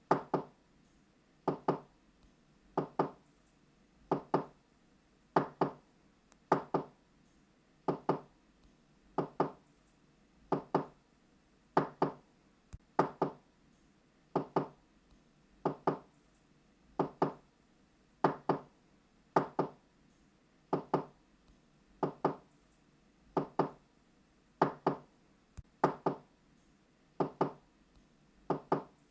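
Knocking on a door in quick double knocks, 'knock-knock', repeated steadily about every second and a quarter.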